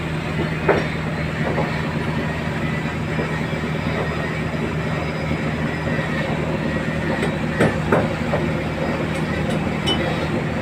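A fishing boat's RF-10 inboard engine running steadily on test with a constant low hum. A few sharp knocks come through, about a second in and twice around eight seconds.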